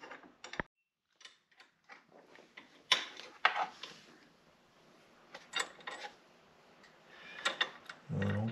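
Scattered light metal clicks and clinks of a bolt and lock nut being handled and fitted by hand against a steel ATV hitch bracket, the sharpest two about three seconds in. A man's voice starts just before the end.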